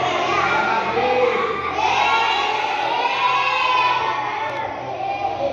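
A class of children calling out an answer together, many young voices at once in a drawn-out, sing-song chorus.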